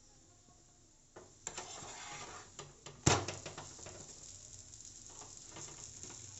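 Battered bread frying in a pan, a sizzle that starts about a second in, with small clicks and one sharp knock of a utensil on the pan about three seconds in.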